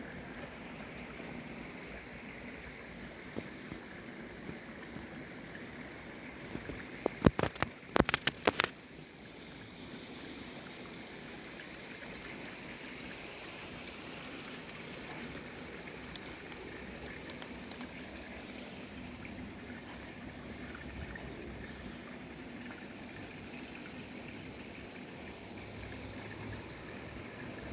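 Small waterfall splashing steadily into a pond, a continuous rushing wash of water. About seven to nine seconds in, a quick cluster of sharp clicks or knocks cuts through it.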